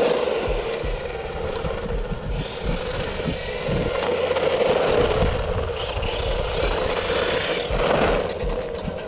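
A 1/10-scale two-wheel-drive RC car's brushed electric motor and drivetrain whining steadily as it drives, running on a 2S LiPo pack. Wind rumbles on the microphone.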